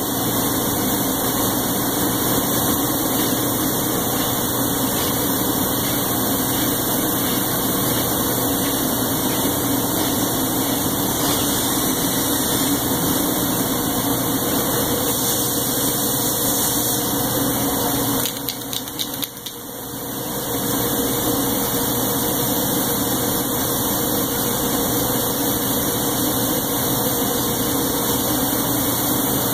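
Steady drone of a workshop motor running. About 18 seconds in it drops sharply quieter, then builds back to full level over a couple of seconds.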